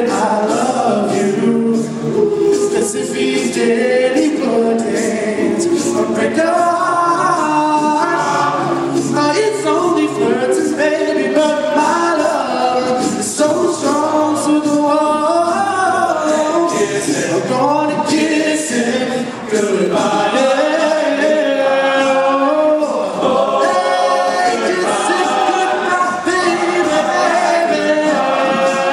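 All-male a cappella group singing in close harmony, many voices and no instruments, with a bass line under the melody and no break.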